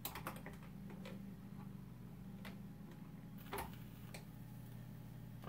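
Stylus of a 1949 Admiral 6F11-N radio-phonograph set down on a record and riding the lead-in groove: scattered surface clicks and pops, a cluster at first and a louder one about three and a half seconds in, over a steady low hum from the set. The owner blames that buzz on an electrical noise source in his basement.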